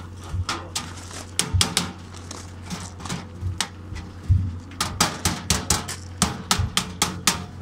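A small hammer tapping on the edge of a galvanized sheet-metal duct in a quick, uneven run of sharp metallic strikes, some coming in fast pairs, over a steady low hum.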